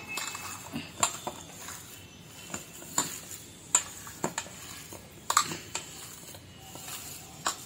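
A hand kneading and mashing spiced chicken mince in a stainless steel bowl: soft squishing, with scattered light clicks and knocks of the metal bowl at irregular moments.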